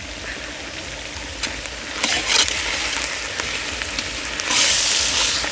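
Chopped vegetables sizzling in hot oil over a high flame as ginger-garlic paste is stirred in, with a few sharp clicks of the stirring spoon. The sizzle gets louder about two seconds in and flares into a loud hiss near the end.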